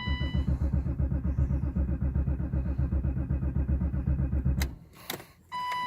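The starter of a 1990 BMW 735iL chatters in rapid rhythmic clicks for about four and a half seconds, then stops, and the engine doesn't catch. The owner describes this as the car that "clicks but it doesn't turn". A short electronic warning beep sounds at the start, and again near the end.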